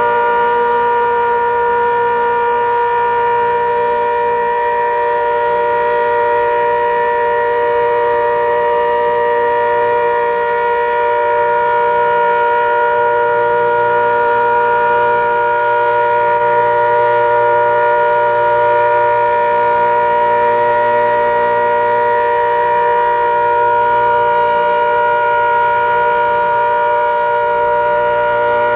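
ACA Hurricane outdoor warning siren sounding a loud, steady chord of several tones that holds its pitch without rising or falling.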